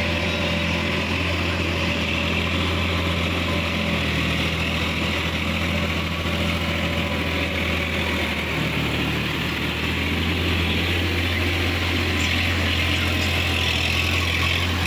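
TAFE 5450 DI tractor's diesel engine running steadily under load as it pulls a rotavator through a flooded, muddy paddy field. Its note shifts slightly about eight and a half seconds in, and it grows a little louder over the last few seconds.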